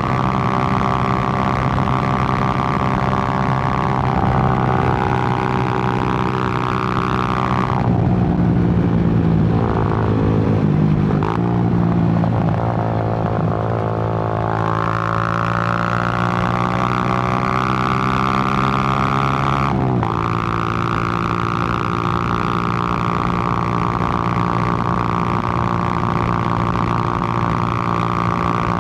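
Suzuki GN125's single-cylinder four-stroke engine running under way. It holds a steady note, drops lower about eight seconds in, and climbs again from about fourteen seconds. The note breaks briefly about twenty seconds in, then holds steady.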